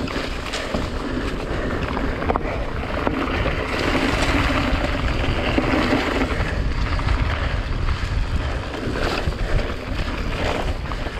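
Wind rushing over the camera microphone and mountain-bike tyres rolling fast over a dirt trail, with a few sharp knocks as the bike hits bumps.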